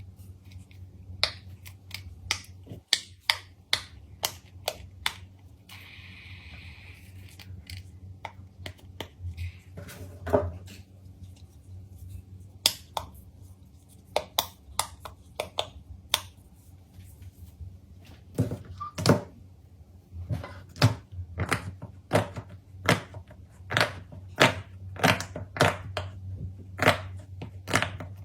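Handled fidget toys making a run of sharp clicks and taps, scattered at first, then coming steadily about twice a second in the second half. A brief steady high tone sounds about six seconds in.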